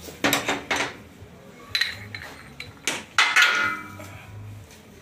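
Metal parts of a Honda PCX125 front variator clinking and knocking as they are taken apart and set down. There are several sharp clacks, and a cluster about three seconds in with one piece ringing briefly.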